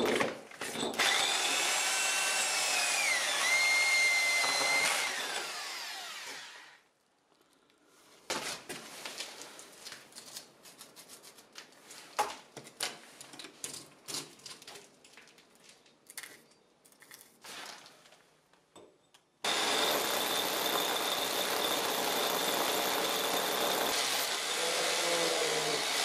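Bosch hammer drill turning a 65 mm core bit into a concrete screed floor: it runs with a whine that dips in pitch, then winds down after about six seconds. Scattered light clicks and knocks follow, then the drill starts abruptly again about 19 seconds in and runs steadily.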